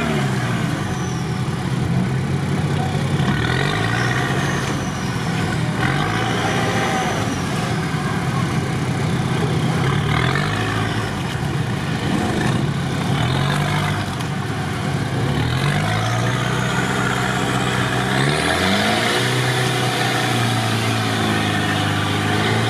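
Off-road vehicle's engine heard from inside its cab, revving up and falling back over and over as it drives on rear-wheel drive.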